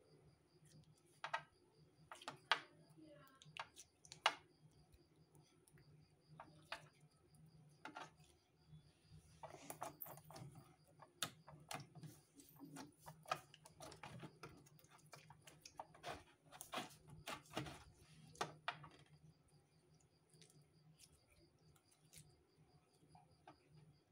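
Slime being squeezed and poked by hand, giving off irregular sharp clicks and pops, busiest in the middle stretch and sparser near the end.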